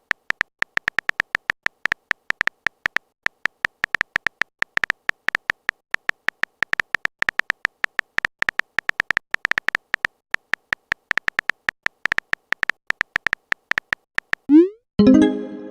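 Rapid, uneven run of short electronic typing clicks with a beep-like tone, about eight a second: a chat app's keystroke sound effect as a message is typed out letter by letter.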